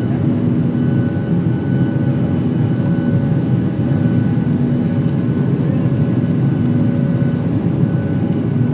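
Airliner turbofan engines at climb power, heard inside the passenger cabin during the climb after takeoff. It is a steady, loud roar with several steady held tones in it.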